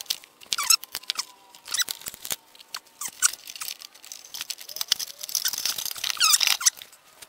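Insulated solar cables being handled and fed into a charge controller's terminals: scattered clicks and rustles, with a few short squeaks of the wire rubbing.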